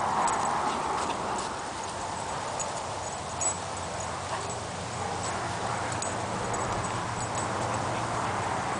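Two large dogs play-wrestling at close range: their breathing and rough play noises, loudest in the first second or so, with small clinks of a chain collar scattered through.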